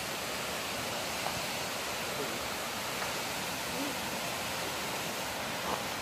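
Steady rush of water from a waterfall and rocky creek.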